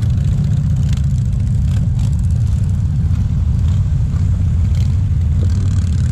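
Engines of many cruiser motorcycles running together in a steady low drone as a column of bikes rides slowly past.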